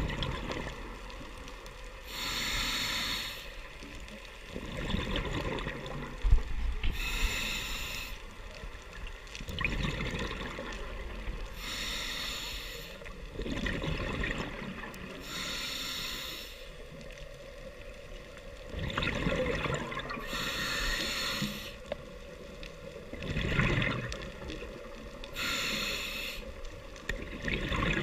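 Scuba diver breathing through a regulator underwater: a hiss on each inhale, then a gurgling rush of exhaled bubbles, repeating about every four to five seconds.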